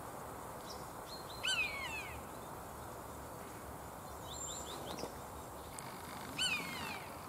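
Common buzzard giving its drawn-out, falling mewing call twice, about five seconds apart. A few short high chirps come between the calls, over a steady background hiss.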